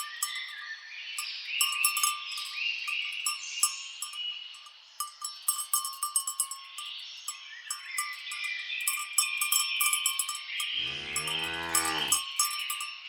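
Birds chirping and calling over the clinking of cattle bells, with a cow mooing once, for over a second, near the end.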